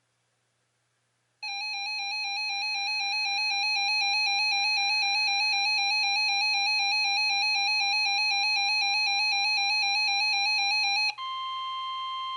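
An electronic warbling alert tone starts abruptly about a second in and grows slightly louder. About ten seconds later it cuts over to a steady, high single tone: the 1050 Hz warning alarm tone that NOAA Weather Radio sends before a broadcast alert.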